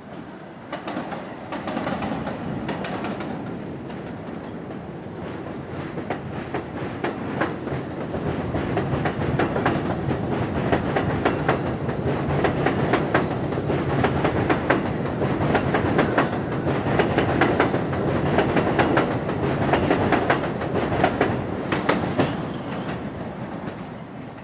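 R62A subway train pulling out of an elevated station and running past close by, its wheels clattering over rail joints. The rumble builds for the first several seconds, stays loud through the middle as the cars go by, and fades near the end.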